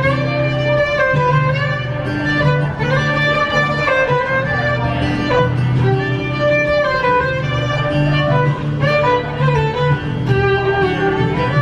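A violin played live with a bow, a flowing melody of held notes and slides. Low bass notes sound beneath it, below the violin's range.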